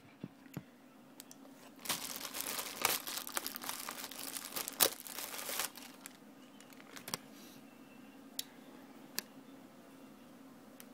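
Thin plastic packaging of an HDMI cable crinkling as it is handled and pulled open, from about two seconds in until nearly six seconds, followed by a few light clicks.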